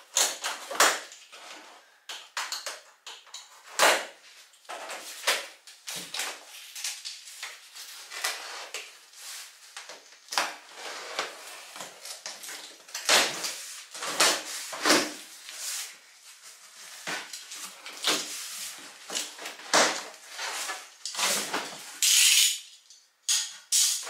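A large cardboard box being opened by hand: the plastic strapping is cut, a utility knife slices through the packing tape along the seams, and the cardboard flaps scrape and rustle as they are pulled open, in a string of short scrapes and rasps with a louder rush of rustling near the end.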